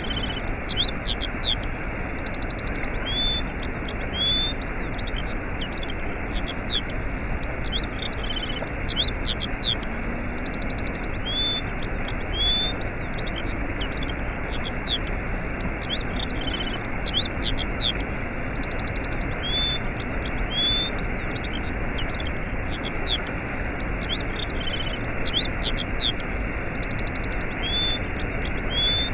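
Steady rushing of a waterfall, with small songbirds chirping and trilling high above it. The same short set of chirps and trills comes round again and again.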